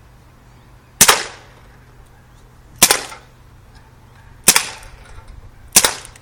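Dan Wesson 8-inch .177 (4.5 mm) CO2 BB revolver firing four single shots, spaced about one and a half seconds apart.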